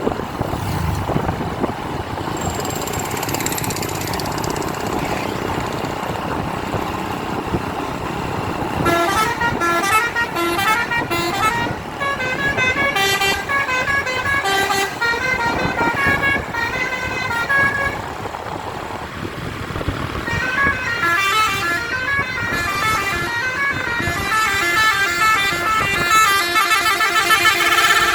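Basuri musical bus horn playing a tune of stepping notes. It starts about nine seconds in, breaks off briefly around eighteen seconds, and plays again to the end, over the steady noise of the bus.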